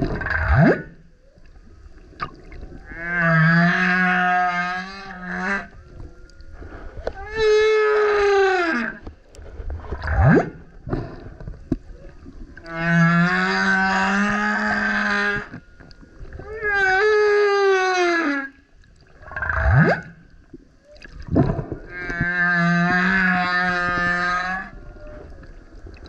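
Male humpback whale singing. A phrase of a short rising whoop, a long rich moan with a low hum beneath it, and a falling howl repeats about every nine to ten seconds, three times over.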